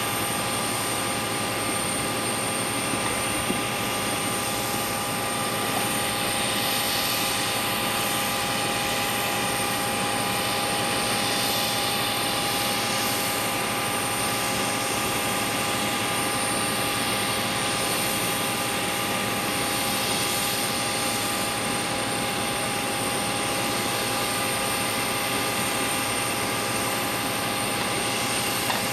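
Parked Boeing 737-800's auxiliary power unit running: a constant turbine whine over a steady hiss.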